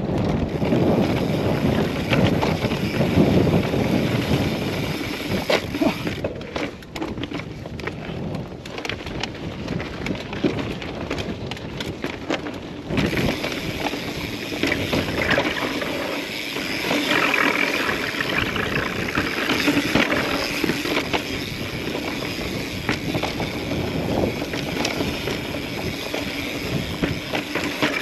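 Mountain bike rolling over rough slickrock and loose rocks: a steady rumble of tyres on stone, with frequent knocks and rattles from the bike over square edges.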